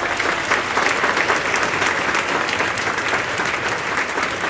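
A large theatre audience applauding, a dense steady clapping that holds throughout.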